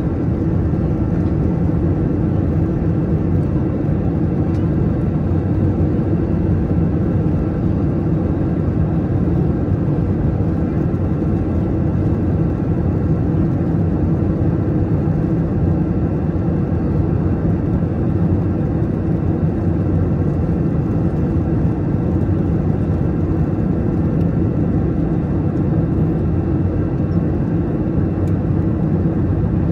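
Steady cabin noise of an Airbus A321 in climb: an even, low roar from its two IAE V2533-A5 turbofans and the air rushing past the fuselage, with faint steady whines on top.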